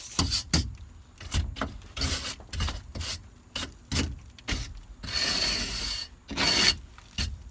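Wire brush scrubbing rust off an RV ceiling in short, separate scraping strokes, with one longer stroke about five seconds in.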